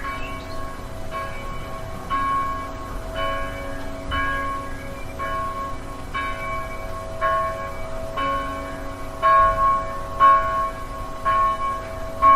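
Church bell ringing, struck about once a second, each stroke's ringing carrying on into the next.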